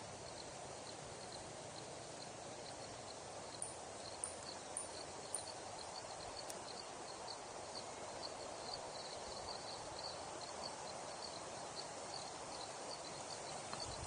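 Steady outdoor ambient noise, a low hiss like wind or surf, with a faint high chirp repeating two or three times a second and a few short, sharp high chirps about four to five seconds in.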